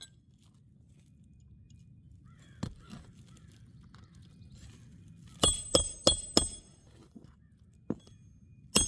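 Hammer driving roofing nails to fasten a replacement asphalt shingle, each strike ringing sharply. One blow, then a quick run of four about halfway through, and another near the end.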